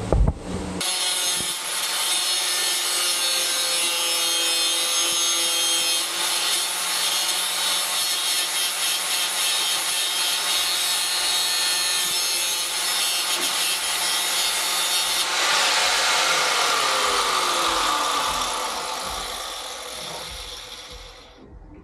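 Angle grinder grinding down fresh welds on metal: it starts about a second in and runs with a steady high whine and abrasive rasp, then winds down with falling pitch over the last few seconds.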